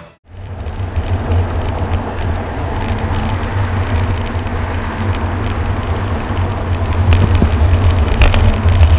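Wind buffeting the microphone of a bicycle-mounted action camera while riding, a steady low rumble mixed with road and traffic noise and scattered clicks and rattles; it grows louder about seven seconds in.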